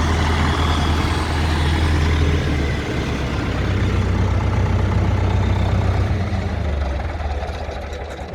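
Farm tractor's diesel engine idling steadily, then running down and dying away near the end as it is shut off.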